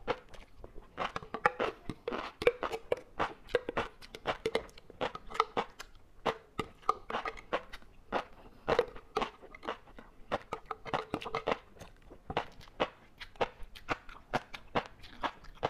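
Close-up chewing of a mouthful of large-grain flying fish roe: many quick, irregular crunching clicks, several a second, as the eggs pop between the teeth.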